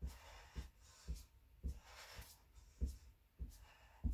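Soft, regular thuds of feet landing on a yoga mat during mountain climbers, nearly two a second.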